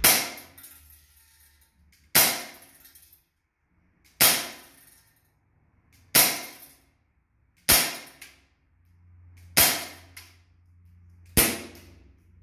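Swiss Arms P92, a non-blowback CO2 replica of the Beretta 92 firing 4.5 mm steel BBs, fired seven times at a steady pace of about one shot every two seconds. Each shot is a sharp crack that dies away quickly.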